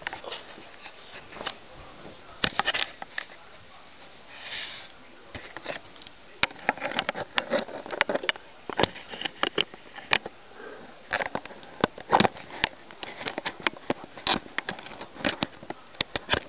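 Close handling noise on a camera: irregular sharp clicks and taps as it is moved and fingered, growing busier in the second half. A short breathy sniff comes about four and a half seconds in.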